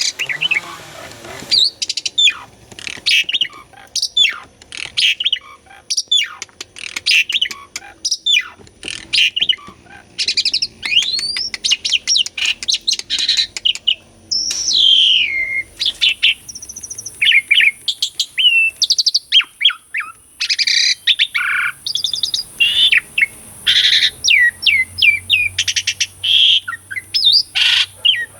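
Asian pied starling (jalak suren) in full song: a fast, unbroken run of varied whistles, chirps and sliding notes, with clicking notes mixed in.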